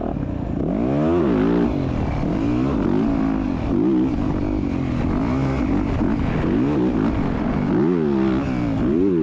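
Motocross bike engine under hard racing throttle, the revs climbing and dropping again and again, every second or two, as the rider opens and shuts the throttle.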